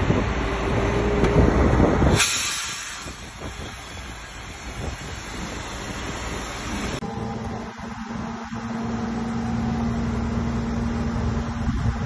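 Diesel engines of heavy earthmoving machinery running, loud with a deep rumble at first. About two seconds in the sound drops abruptly to a quieter engine noise. About seven seconds in it changes again to a steady hum.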